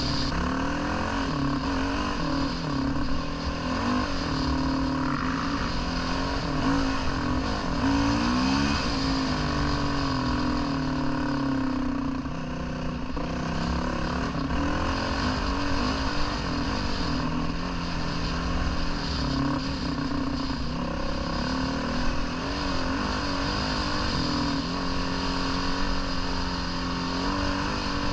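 Dirt bike engine running under way, its pitch rising and falling again and again as the throttle is opened and closed and the gears change.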